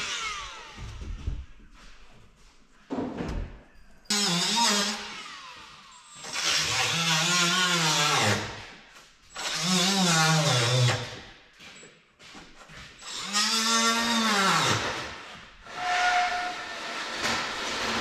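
Handheld high-speed power tool working burnt fiberglass, running in about five bursts of a few seconds each with gaps between. Its whine rises and falls in pitch as it spins up, loads in the cut and winds down.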